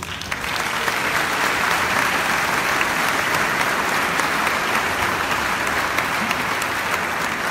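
A congregation applauding with dense, steady clapping that starts suddenly.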